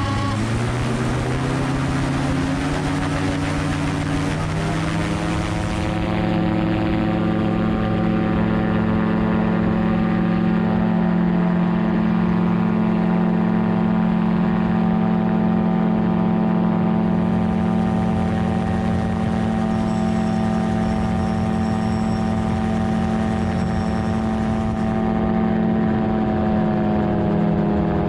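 Magni M16 gyroplane's engine and pusher propeller, heard from on board, going up to full power for takeoff. The pitch rises over the first few seconds, then holds steady through liftoff and the climb, easing slightly near the end.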